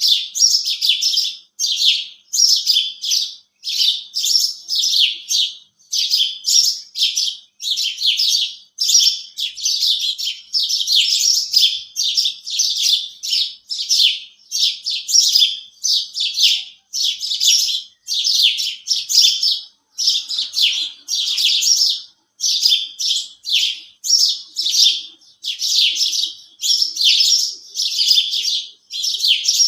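House sparrows chirping: a steady run of short, high chirps in quick clusters with brief pauses between.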